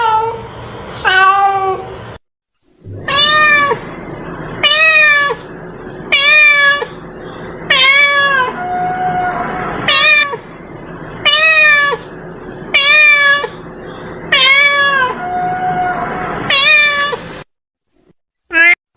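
A cat meowing over and over, about ten short meows evenly spaced, each rising and then falling in pitch.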